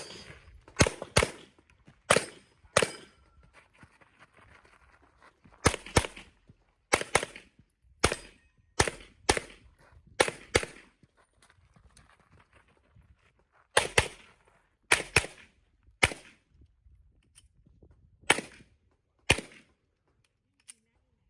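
Handgun shots fired rapidly, mostly in quick pairs, with pauses of one to three seconds between groups, about twenty shots in all.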